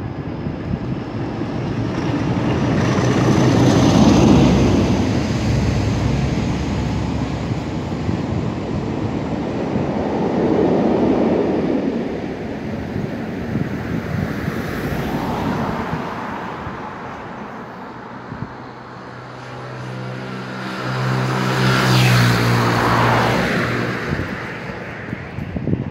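Class 47 diesel locomotives, twelve-cylinder Sulzer engines, passing beneath at the head and tail of a hauled train. The engine and wheel noise is loudest about four seconds in and then fades away. Near the end another engine passes with a falling pitch.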